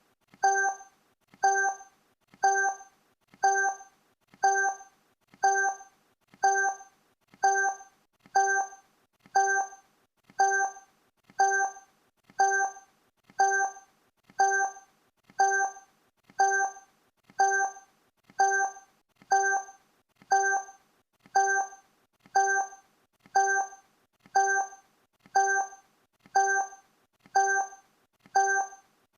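Countdown timer sound effect: a short pitched blip repeating evenly once a second.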